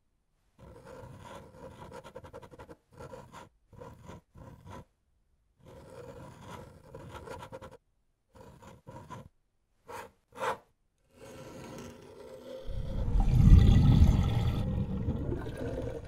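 Pen nib scratching on paper in a series of short drawing strokes, then two brief sharp scratches. Near the end a much louder, deeper rushing sound swells up and holds.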